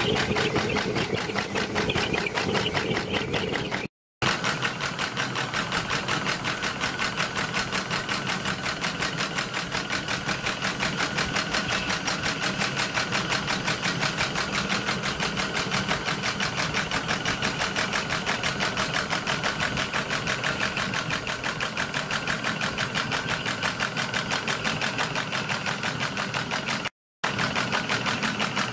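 Metre Maid miniature steam locomotive, fired by a butane gas burner, running jacked up with its driving wheels spinning free: rapid, even exhaust beats. The sound drops out briefly twice.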